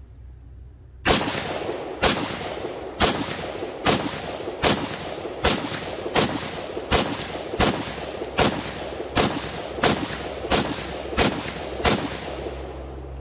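Beretta ARX-100 rifle fired semi-automatically: about fifteen shots in a steady string, roughly one every three-quarters of a second, each with a short echoing tail. Firing begins about a second in and stops about a second before the end.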